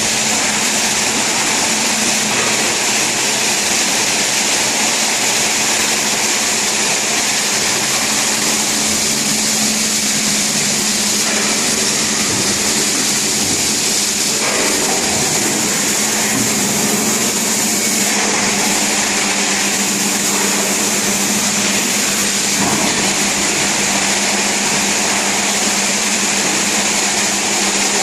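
Walk-behind wet floor scrubber running steadily: a continuous motor drone with a low hum and a high whine.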